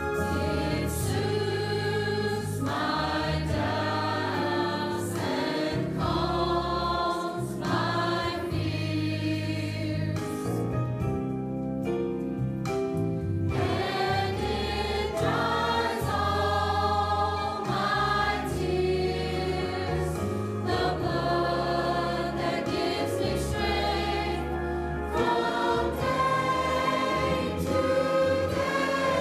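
Mixed-voice church choir singing a gospel hymn in parts, with instrumental accompaniment holding steady bass notes underneath.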